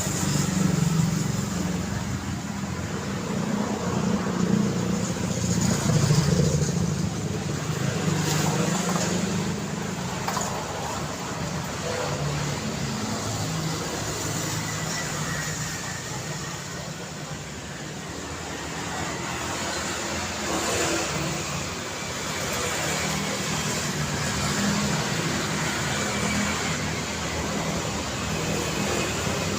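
Road traffic: a steady wash of car engines and tyre noise, with vehicles passing louder a few seconds in and again about two-thirds of the way through.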